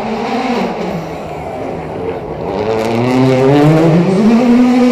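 Rally car engine running hard on a street stage. Its pitch drops over the first second or so, then rises steadily and loudly as the car accelerates.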